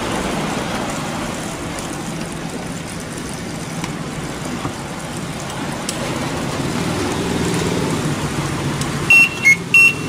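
LG top-loading washing machine running a steady low hum as it is set to spin, with its motor not turning. Near the end its control board starts a two-tone beeping alarm, short beeps alternating high and low, several times a second.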